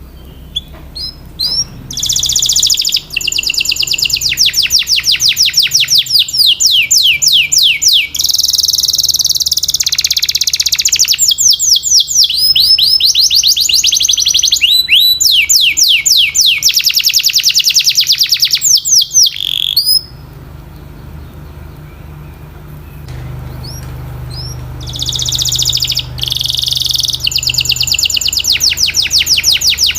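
Domestic canary singing fast rolls of repeated down-sweeping whistled notes, one run after another. The song breaks off about twenty seconds in and starts again a few seconds later, over a low steady hum.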